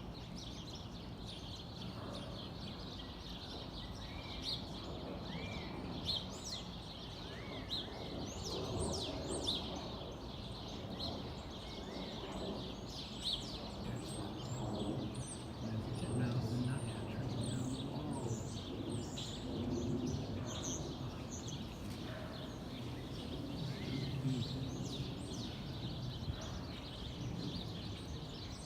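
Small backyard songbirds chirping and calling: many short, high chirps and quick little whistled notes, some overlapping, over a steady low background rumble.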